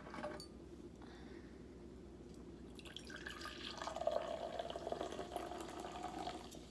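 Wine being poured into a glass from about three seconds in: a steady stream of liquid with a ringing tone from the glass.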